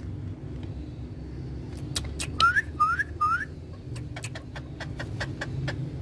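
Indian ringneck parakeets calling: three short rising chirps in quick succession about two and a half seconds in, among scattered sharp clicks. A steady low rumble runs underneath.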